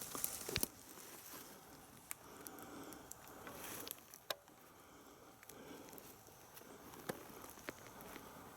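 Faint rustling with scattered sharp clicks and ticks close to the microphone, the loudest a few in the first second and single ones about four and seven seconds in.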